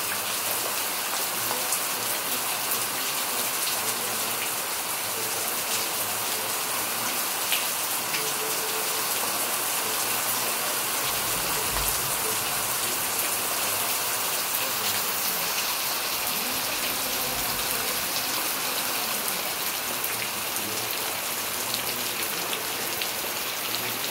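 Heavy rain falling steadily: a dense, even hiss of drops splashing on wet ground and a paved porch floor.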